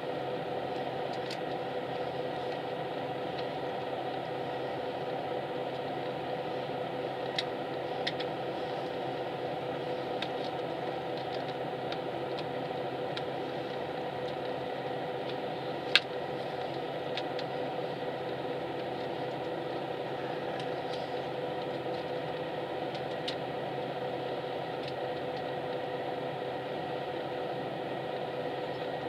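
Cabin of a highway coach standing with its engine idling: a steady hum and hiss that holds at one level. A few faint clicks, and one sharper click about halfway through.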